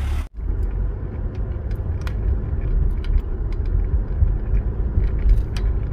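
Car driving, heard from inside the cabin: a steady low rumble of engine and road noise with faint scattered clicks. It cuts in just after a brief gap at the start.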